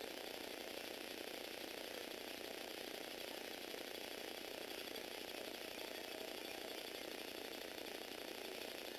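Lego Technic model car's electric motor and plastic gear train running steadily, with a fast, fine, even rattle of gear teeth as the four-wheel synchronized-drive car drives along.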